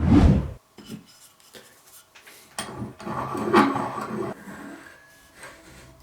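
Hand work on a workbench: a dull thud at the start, then scattered knocks, clicks and scraping or rubbing, busiest in the middle.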